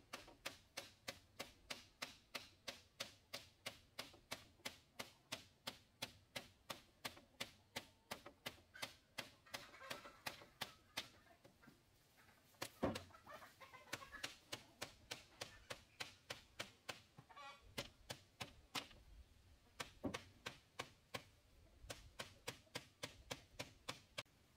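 Rhythmic tool strikes, about three sharp taps a second, most likely work on bamboo. They pause briefly a couple of times, and one heavier knock comes about thirteen seconds in. Chickens cluck in the background around ten seconds in.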